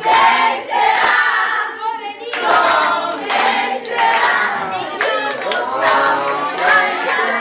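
A group of voices singing a birthday song together at the cake table, with hand clapping along.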